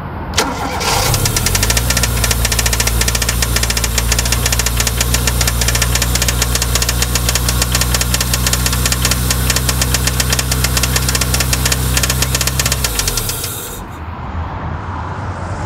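Toyota 4A-GE twin-cam inline-four held at raised revs for about eleven seconds, with a fast, even knock running through it, then dropping back to idle near the end. The knock is an unlocated engine noise that is being tracked down.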